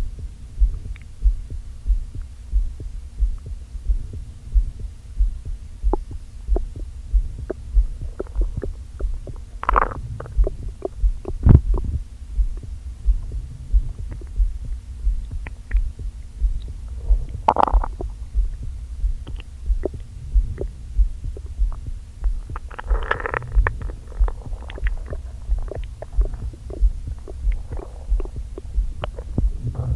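Human stomach gurgling and rumbling, picked up with a microphone pressed to the belly, over a steady low thump about once a second. Louder gurgles come around a third of the way in, just past halfway, and again near the end. It is an upset stomach, which its owner puts down to eating a large meal too quickly after going without.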